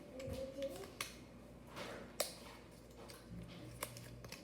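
Sharp plastic clicks and taps, three distinct ones spread out, as the Apple EarPods box and its plastic packaging are handled and opened.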